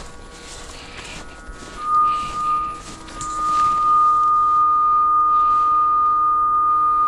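Cable locator receiver sounding a steady high tone: a short burst about two seconds in, then held continuously from about three seconds on, as it picks up the locate signal that has bled off the cable drop onto the electric line. Short scuffing noises come in the first few seconds.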